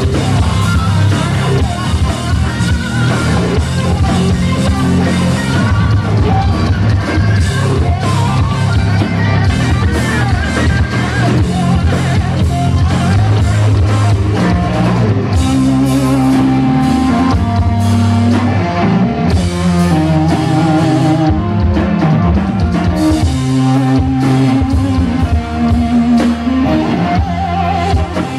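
Hard rock band playing live on electric guitars and a drum kit, loud and continuous, recorded from within the audience.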